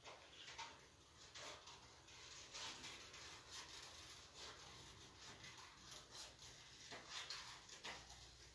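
Faint snips and paper rustling from scissors cutting a circle out of red construction paper, as short irregular clicks.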